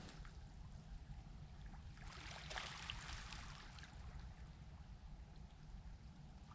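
Faint wash of the sea on the shore, swelling for a second or so about two seconds in, over a low steady rumble.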